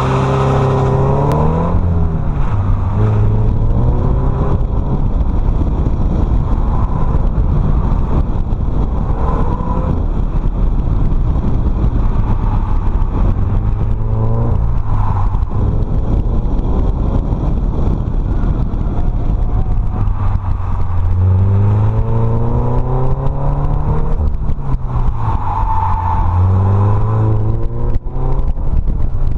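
2013 Scion FR-S's 2.0-litre flat-four engine, heard from inside the cabin, accelerating hard at the start and then revving up and down again and again as the car is driven hard through tight turns. Tyres squeal in places as the car slides on worn, low-grip tyres.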